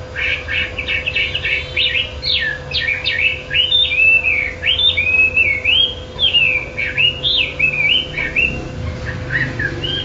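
A caged wambi songbird singing nonstop: a continuous, varied run of loud, clear whistled phrases that swoop up and down, thinning to a few softer notes near the end.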